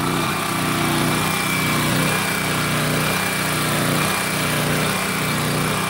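Open-frame portable generator's small engine running steadily at constant speed, a hum with a thin high whine above it.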